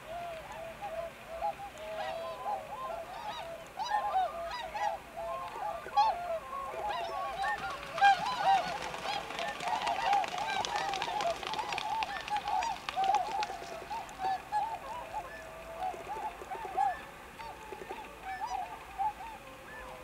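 A flock of tundra swans calling continuously, many soft, bugling honks overlapping. From about 8 to 13 seconds in, a louder clatter of splashing and wingbeats is heard as swans run across the water to take off.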